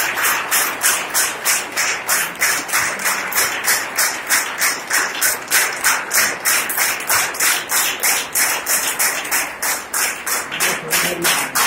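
A group of people clapping together in a steady rhythm, about three claps a second, with a few voices joining faintly near the end.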